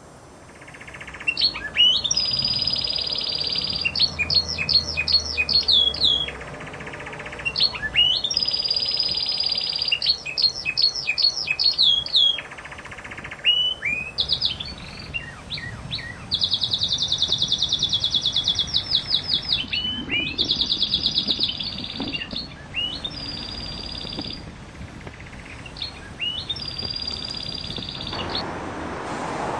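A songbird singing loud, high phrases of fast trills and whistled sliding notes, about seven phrases of one to three seconds each with short pauses between them.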